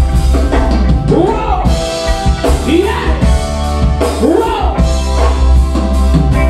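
Live reggae band playing with a heavy bass line, drum kit, keyboard and electric guitars, and a singer's voice rising and falling over it.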